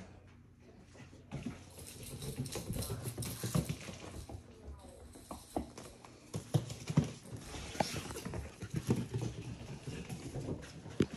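Young Portidoodle puppies' claws clicking and pattering on a laminate floor as they run and play. The quick, irregular taps start about a second and a half in and run on densely.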